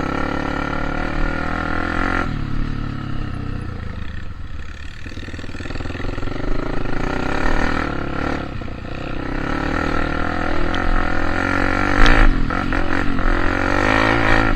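A vehicle engine running, its revs rising and falling several times, with a burst of clatter about twelve seconds in that is the loudest moment.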